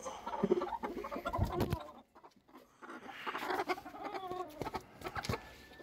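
Chickens clucking in two stretches with a short pause between them, and a few knocks.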